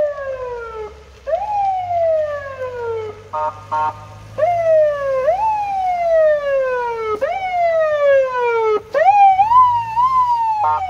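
Electronic police siren from a PA300 siren amplifier cycling through its tones: long falling wails that jump back up and sweep down again every one and a half to two seconds, two short horn blasts about three and a half seconds in, and a quicker rising-and-falling warble in the last two seconds, cut off by a steady horn tone at the very end.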